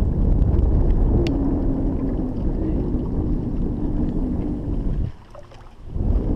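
Fishing boat's motor running, a low rumble with a faint steady hum. It drops away briefly about five seconds in, then comes back.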